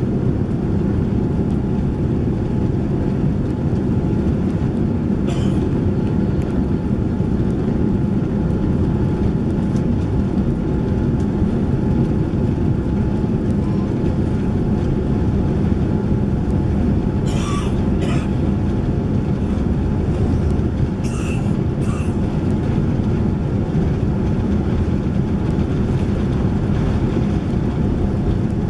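Cabin noise inside a Boeing 787-9 rolling down the runway on its takeoff run: a steady, loud deep rumble of engines and wheels on the runway. A few short rattles of cabin fittings cut through it, most of them past the middle.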